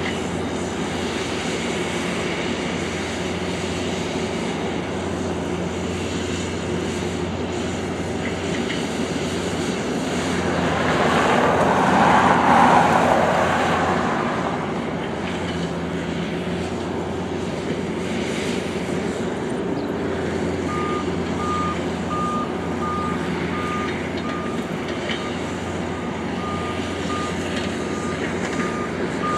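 John Deere skid steer's diesel engine running steadily while working dirt, with a louder rush that swells and fades for a few seconds near the middle. About two-thirds of the way in, a backup alarm starts beeping, roughly one and a half beeps a second, as the machine reverses.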